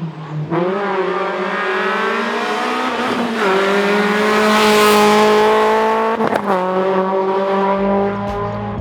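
Rally car accelerating hard past at full throttle, its engine pitch climbing and then dropping at two upshifts about three seconds apart, loudest about halfway through. Music fades in near the end.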